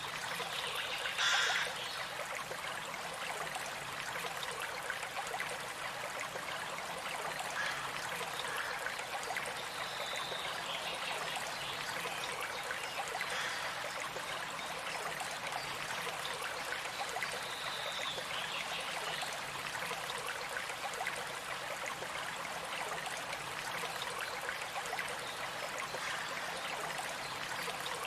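Stream of running water flowing steadily, with a brief louder burst about a second in.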